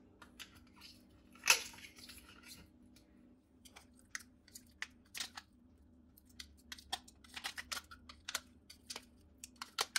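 Knife cutting jelly in a plastic ice-cube tray and scraping the pieces out: scattered light clicks and taps of the blade on the plastic, coming more often in the second half.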